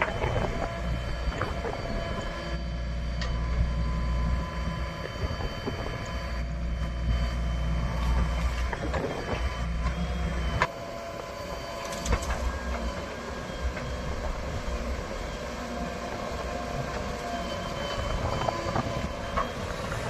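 Heavy diesel machinery running, with thin steady high whines and a few sharp metallic clanks; the low engine sound drops off suddenly about halfway through.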